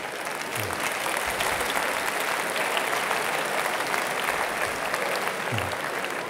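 Audience applauding, a dense steady clapping that builds over the first second and holds.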